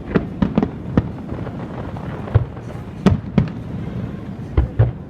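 Fireworks bursting in an irregular run of sharp bangs, about nine in five seconds, some in quick pairs, over a steady low background noise.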